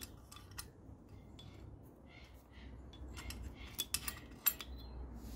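Screwdriver clicking and scraping against a bolt and the metal engine casing as a bolt is worked loose, with a few light metallic clicks clustered a little past the middle.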